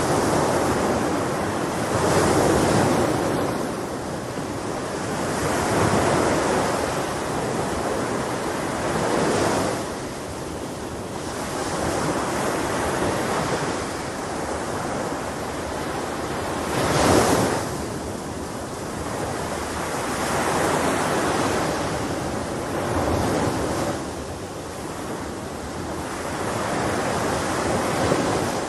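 Sea waves breaking and washing in, the surf swelling and fading every few seconds, with one sharper crash about seventeen seconds in.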